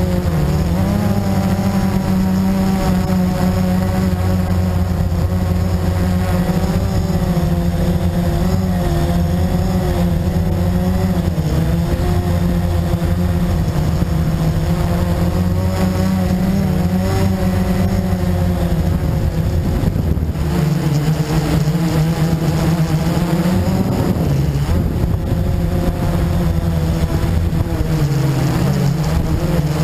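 Blade 350QX quadcopter's brushless motors and propellers buzzing steadily, heard from on board the airframe. The pitch wavers up and down as the throttle changes.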